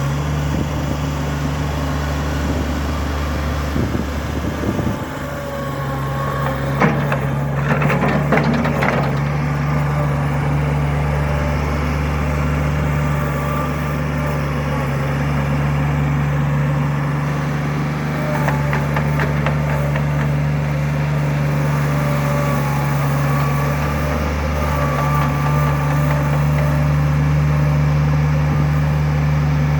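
Bobcat 443 skid steer's diesel engine running steadily, with a short burst of clattering about seven seconds in.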